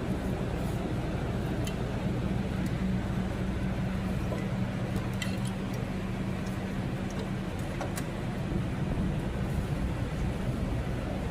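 Car engine idling steadily, an even low hum that holds without revving.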